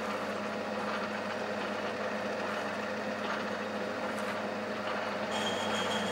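Myford lathe running at slow speed with an offset, out-of-balance cast iron wheel in the four-jaw chuck while it is centre drilled: a steady motor and spindle hum. Near the end the sound changes abruptly and a steady high whine joins as the lathe runs on.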